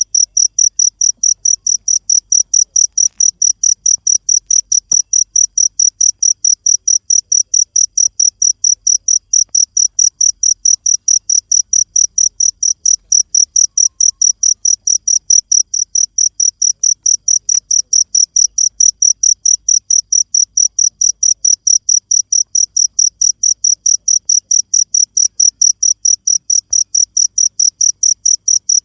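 Cricket chirping steadily: one high-pitched pulse repeated about three to four times a second without a break.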